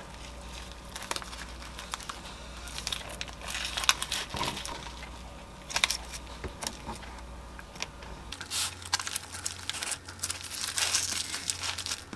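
Dry sheets of roasted seaweed (gim) crinkling and crackling as they are pressed and rolled around gimbap filling, in irregular bunches of sharp crackles.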